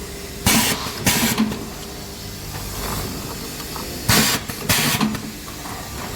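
Lamp holder locking machine cycling. There are two pairs of short, loud, hiss-like bursts, the pairs about three and a half seconds apart, over a steady machine hum.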